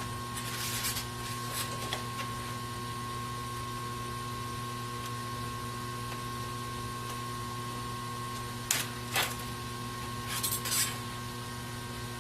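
Steady electrical hum with a few fixed tones, broken by several brief clicks and scrapes of small objects handled on a workbench, clustered near the start and again about nine to eleven seconds in.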